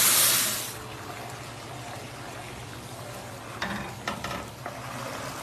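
Chicken broth poured through a metal strainer onto hot toasted bulgur in a pot, hissing loudly as it hits. The hiss dies away about half a second in, leaving a quieter steady liquid sound, with a few light clicks near the end.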